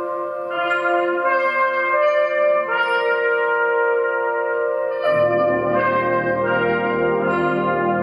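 A brass band playing a slow ballad: long held chords in the upper brass, with the lower brass and basses coming in about five seconds in and filling out the sound.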